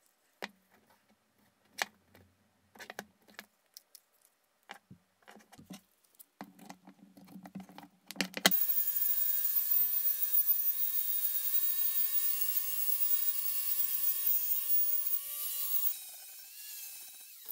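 Sharp clicks from ratcheting quick-grip bar clamps being tightened. About eight and a half seconds in, a handheld angle grinder starts and runs steadily on the steel machete blade with a hissing grind. Near the end it is switched off and its pitch falls as it spins down.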